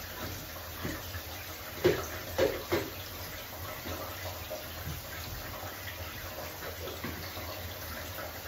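Tap water running steadily, as for a dog bath, with three short knocks from bottles being handled about two to three seconds in.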